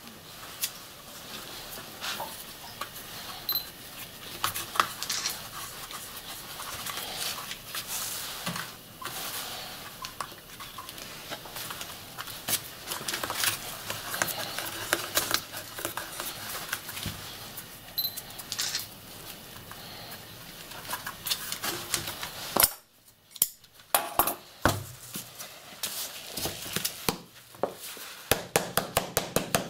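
Hands handling a paper-wrapped cylindrical firework at a workbench: paper rustling and twine being pulled and knotted around the casing, with many small clicks and taps. Near the end comes a run of quick, even ticks.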